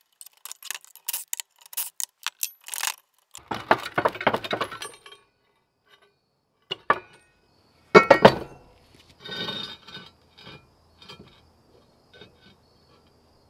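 Steel hitch parts clinking and clanking on the bench as bolts and nuts come out of a pintle hitch plate and the plate is handled. A run of small metal clinks, a rattling stretch, then one loud clank about eight seconds in as steel is set down.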